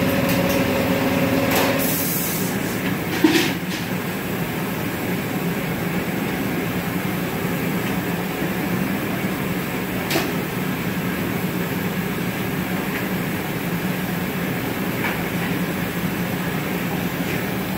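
Steady hum and roar of glass-shop equipment: furnace burners and fans. A steady tone stops about two seconds in. A sharp knock comes about three seconds in, and a lighter one about ten seconds in.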